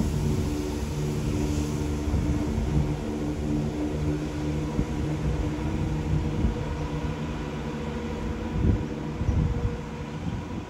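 A vehicle engine running at a steady speed, with several steady tones, dying away near the end with a few low thumps.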